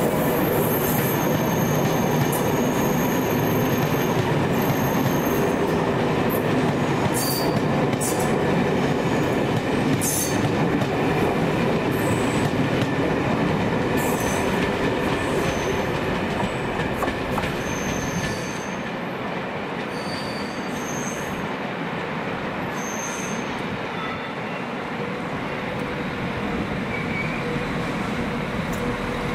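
A train moving through the station, its wheels giving short high squeals on the track over a steady running rumble, with scattered clicks from the wheels over the rails. The sound eases a little about two-thirds of the way through.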